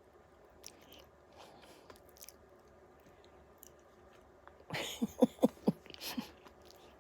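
Faint crunching of a cat chewing dry cat food. About five seconds in comes a louder quick run of five short, low voiced sounds.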